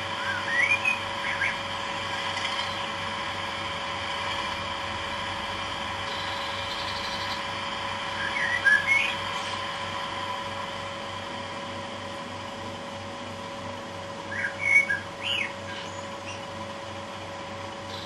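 Bachmann Class 37 model locomotive's DCC sound decoder playing its diesel engine running steadily, a low throb under a steady high whistle. Three short bursts of chirping come through over it: near the start, halfway through and near the end.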